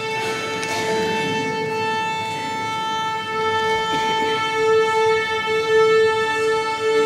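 Orchestra tuning: a single A is held steadily while the string players bow their open strings against it.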